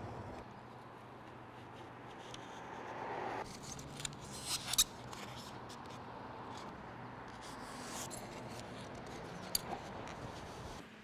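Quiet handling sounds of rigid pink foam blocks being set and pressed against the part on a wooden bench, with rubbing and scraping and a few sharp clicks, a cluster about four to five seconds in and another near the end.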